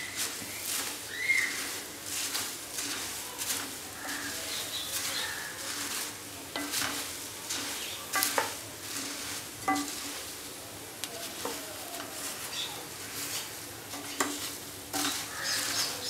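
Slotted wooden spatula stirring and tossing puffed rice in a hot stainless steel pan as it fries with spices and nuts: irregular scraping and rustling of the dry grains against the metal, over a sizzle.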